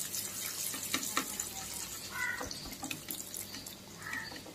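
Karanjis, layered maida-dough pastries, frying in hot oil: a steady sizzle full of small crackles. Two short squeaky tones sound about two and four seconds in.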